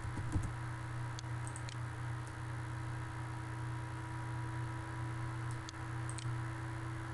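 Steady low electrical hum and hiss from the recording setup, with a handful of faint, scattered computer mouse clicks.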